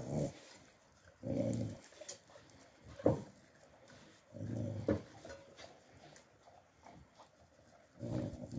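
An Alabai (Central Asian Shepherd) puppy growling low three times, each growl about half a second, while guarding its food bowl. There are two sharp knocks in between.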